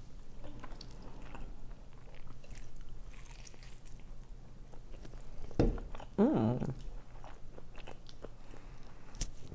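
Close-miked chewing and biting of food, with small wet mouth clicks. About six seconds in comes a louder, short sound that slides up and down in pitch.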